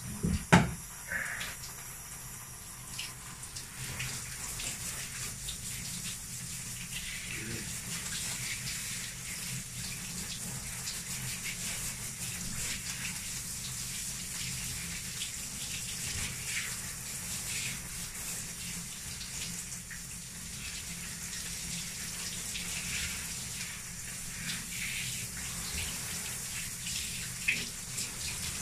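A handheld shower sprays water over a dog standing in a bathtub, a steady hiss of running water. There is one sharp knock about half a second in.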